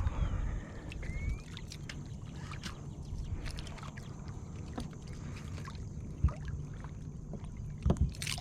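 Sounds of handling aboard a sit-on-top kayak: a steady low rumble of wind and water on the hull with scattered light clicks and knocks, and a couple of sharper knocks near the end.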